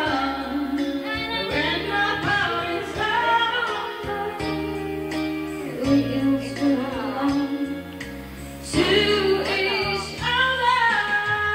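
A woman sings a melody into a handheld microphone, holding long notes, over an instrumental accompaniment that includes guitar.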